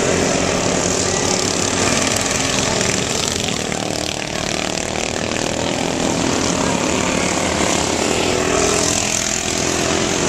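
Several racing riding lawn mowers' small engines running hard together: a steady, loud, overlapping buzz with engine tones that shift as the machines pass.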